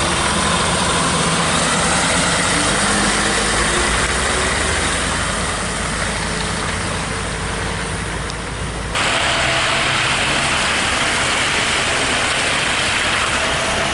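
Diesel tractor-trailer engine running, its pitch rising slowly over a few seconds. About nine seconds in, the sound cuts abruptly to a steady hiss of tyres on a slushy road.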